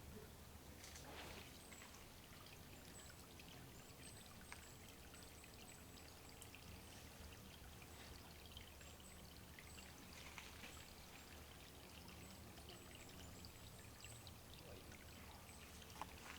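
Faint trickle and drip of water at a small woodland water hole, with a string of very high, thin short notes in the background.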